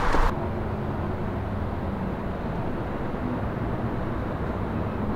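Outdoor street noise cuts off abruptly just after the start, giving way to a steady low rumble of distant city traffic with a faint hum.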